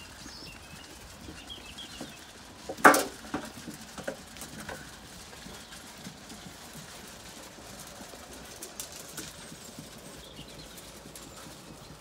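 Zwartbles sheep crowding at feed troughs, with faint bird chirps in the background. One loud sudden noise comes about three seconds in, followed by a few softer knocks.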